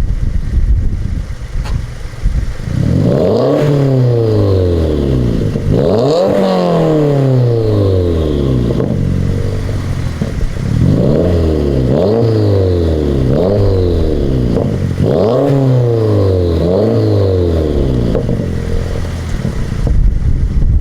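Subaru WRX's turbocharged flat-four engine revved in about six quick blips from idle, each rising sharply and falling back slowly, with a faint turbo whistle dropping away after the revs. It settles back to idle near the end.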